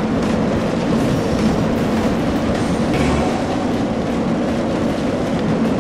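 Steady rumble and clickety-clack of a roller-coaster train running on its track, laid in as a sound effect for the cat's box ride.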